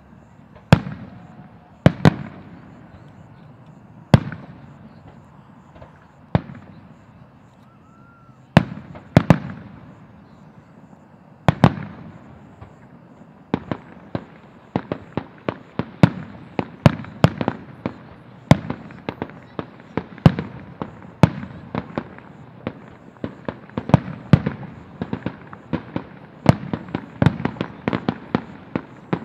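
Aerial firework shells bursting with sharp bangs, each trailing off in a short echo. They come a second or two apart at first, then from about halfway through a quick run of several bangs a second.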